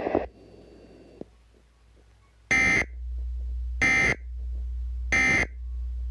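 Emergency Alert System end-of-message data bursts: three short, identical bursts of digital screech about a second and a quarter apart, over a low hum. They signal the end of the tornado warning.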